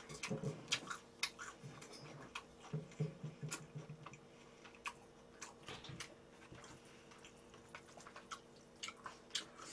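A person chewing food close to the microphone: faint, irregular wet smacks and clicks.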